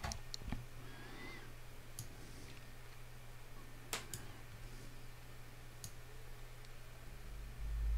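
Scattered faint clicks of a computer mouse and keyboard, with a close pair about four seconds in, over a steady low electrical hum. A low rumble comes in near the end.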